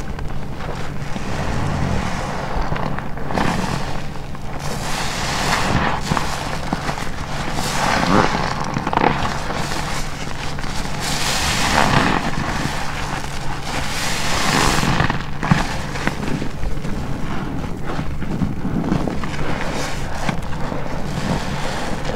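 A black car wash sponge full of shampoo lather being squeezed by hand, again and again: wet squelching and crackling foam that swells and fades every two or three seconds.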